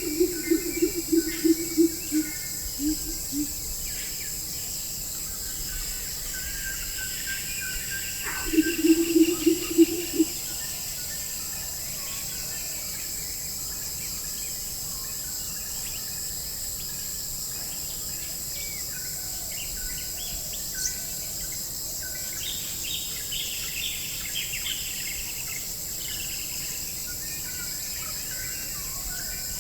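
Forest ambience: a steady high-pitched insect drone with scattered bird chirps and calls. Twice, at the start and about 8 seconds in, a loud rapid run of low pitched notes from an animal calls over it.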